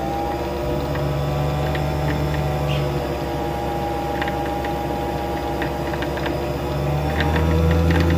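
Singer MX60 sewing machine's motor running under the foot pedal to drive the bobbin winder, a steady mechanical whine as the bobbin spins and fills with thread. It gets louder about seven seconds in.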